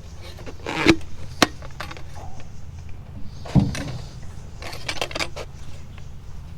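Hard plastic intake and turbo-inlet parts being handled and fitted together: a few separate knocks and clacks, with a run of small clicks near the end.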